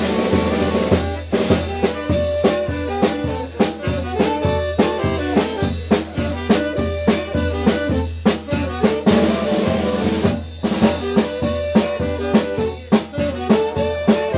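Music with a drum kit keeping a steady beat under pitched melody instruments and a constant bass.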